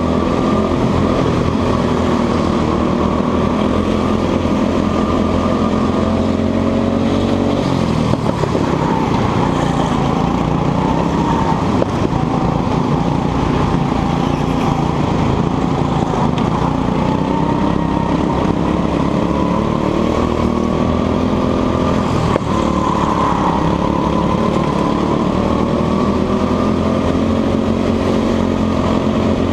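Go-kart engine heard from the driver's seat, running hard at full throttle, its pitch falling as it slows for corners and climbing again on the straights, several times over.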